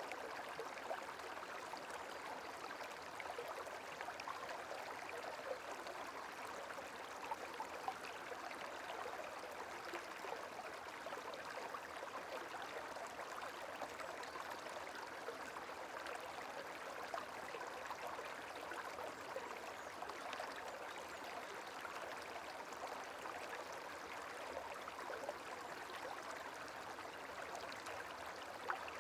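Gentle flowing water, like a small babbling stream, running steadily and softly with fine small splashes.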